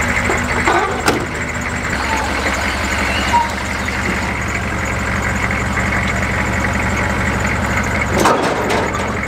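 Lifted Chevrolet Nova's engine idling steadily as the car is driven down off a trailer, with a sharp knock about a second in and another short clatter near the end.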